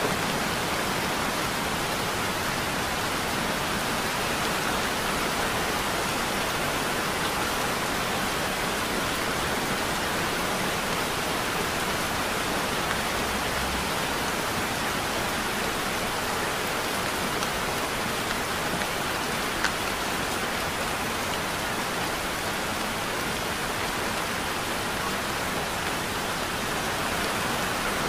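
Heavy rain falling steadily, an even hiss of water, with one brief sharper tick about two-thirds of the way through.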